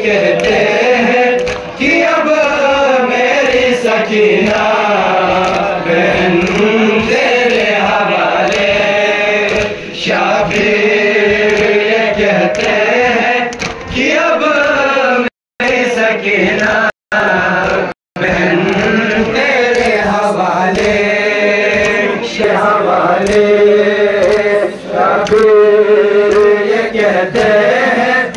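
Men's voices chanting a Muharram noha (lament) together in long sung phrases. The sound cuts out briefly three times a little past the middle.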